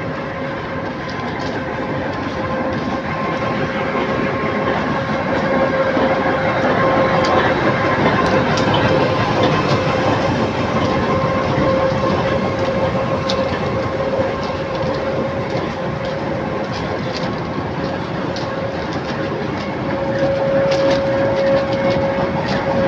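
Train rolling past at close range: wheels clicking over the rail joints, with a steady whine throughout that swells twice.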